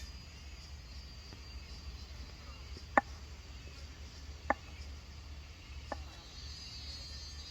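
Three sharp knocks about a second and a half apart, the first the loudest, over a faint steady hum.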